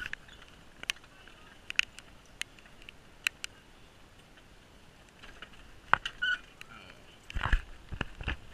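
Pedal go-kart rattling as it rolls: scattered sharp clicks and knocks, a short squeak about six seconds in, and a louder rumbling, knocking stretch near the end.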